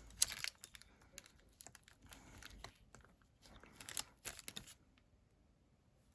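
Faint crinkling and scattered light clicks from a sheet of self-adhesive craft gems being handled and peeled, with a short burst of sound about four seconds in.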